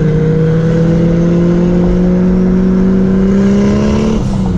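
Mustang GT's 4.6-litre three-valve V8 heard from inside the cabin, pulling in gear with the revs climbing slowly, then dropping sharply about four seconds in, over steady road rumble.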